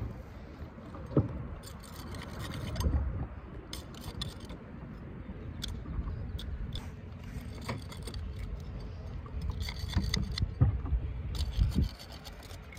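Kayak being tied up to a barnacle-crusted bridge piling: rope rustling and scraping as it is wrapped around a rusty metal rod, with scattered knocks and clicks.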